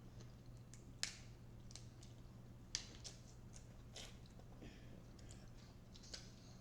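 Faint eating sounds of Dungeness crab: scattered sharp clicks and crackles of shell being cracked and picked apart, with chewing, over a low steady hum. The clearest cracks come about a second in and near three seconds.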